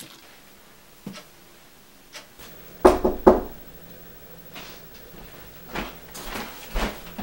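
Knocking on a door: two loud knocks close together about three seconds in, after a lighter tap, then softer thumps toward the end.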